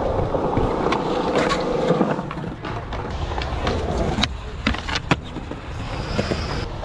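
Skateboard wheels rolling over rough concrete, with sharp clacks of the board striking the ground and ledge during tricks.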